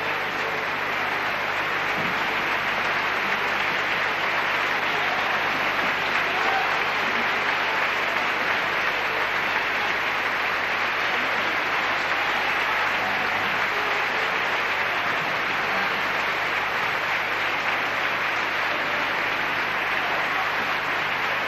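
Opera audience applauding, steady and unbroken.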